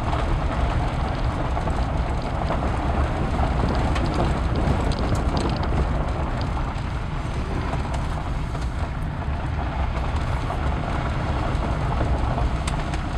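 Sedan driving slowly down a rough dirt road: a steady rumble of tyres and engine, with no distinct knocks.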